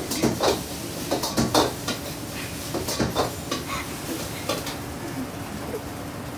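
Clinks and clatter of chopsticks and dishes, a string of short sharp knocks at irregular moments, over a steady kitchen hum.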